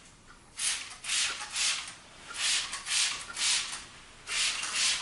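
Paint coating prep going onto a car windshield with a towel: about eight short hissing strokes in groups of two or three, with brief pauses between the groups.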